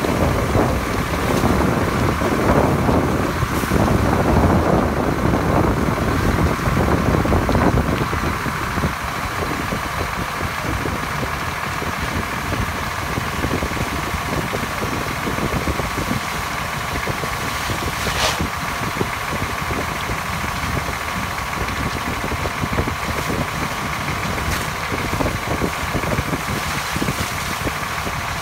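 Fire truck engine running steadily, with a constant hum, louder for the first eight seconds or so. A single sharp knock about two thirds of the way through.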